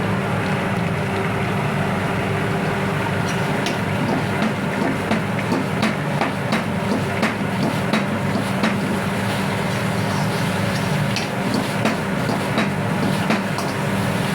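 A steady low mechanical hum with many irregular sharp clicks and crackles scattered over it.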